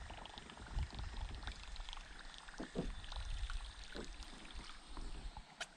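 Light water splashing and dripping from a kayak paddle working shallow creek water, with a few sharper small splashes.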